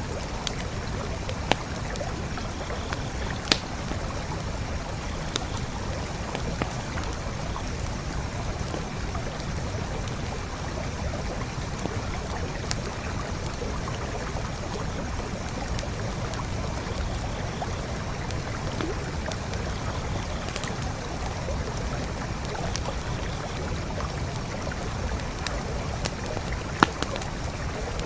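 Forest creek flowing steadily, with a few sharp pops from a campfire burning beside it. The loudest pop comes near the end.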